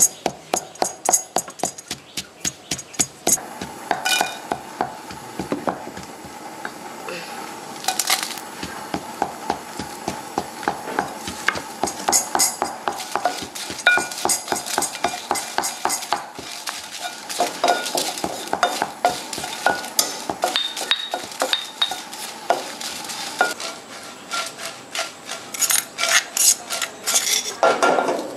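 A wooden spatula scraping and knocking in a small pan as dried red chillies are dry-roasted for Mussaman curry paste, with a dense run of clicks and knocks throughout. A stone pestle strikes a granite mortar at the start.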